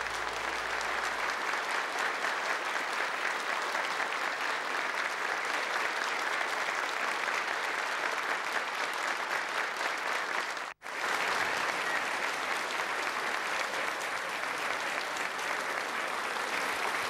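Studio audience applauding steadily, a dense patter of many hands clapping, as the last note of a song fades out in the first second. The sound cuts out for an instant about eleven seconds in, then the applause carries on.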